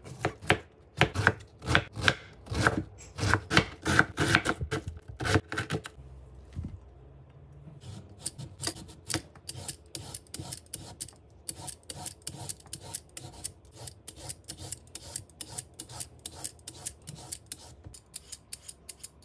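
Chef's knife slicing through a cabbage on a wooden cutting board, crisp cuts about two a second. From about eight seconds in, a julienne peeler scrapes down a carrot in quick repeated strokes, about three a second.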